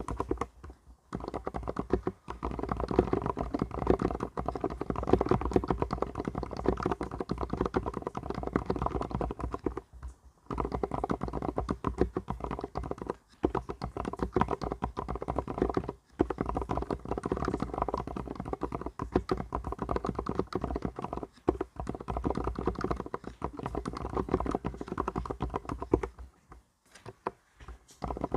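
Fast continuous typing on an Mstone mechanical keyboard, a dense run of muted key presses. It breaks off briefly a few times and for about two seconds near the end.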